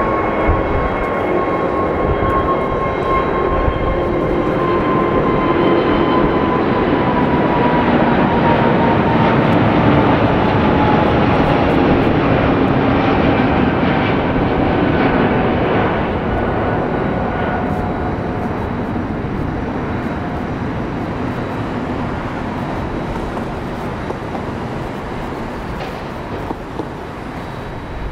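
Airbus A380's four jet engines at take-off thrust: loud jet noise that builds to a peak about ten seconds in and then fades as the aircraft passes and climbs away, with an engine whine that glides down in pitch as it goes by.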